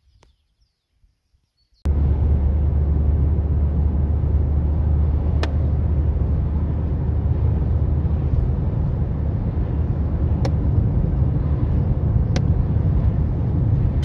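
Steady low rumble of a moving car's engine and road noise, cutting in suddenly about two seconds in after near silence, with a few faint clicks.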